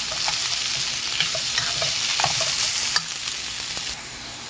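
Watermelon rind strips sizzling in oil in a frying pan, stirred with wooden chopsticks that tap and scrape against the pan every second or so. The sizzle drops noticeably quieter about four seconds in.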